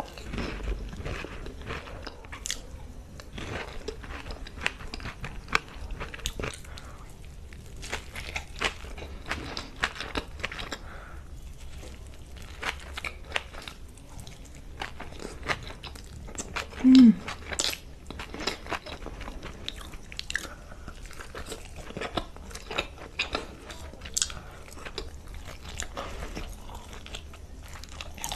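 A person biting and chewing crisp Indian street-food snacks such as puris, with many small crunches throughout. A short hum that falls in pitch comes about 17 seconds in.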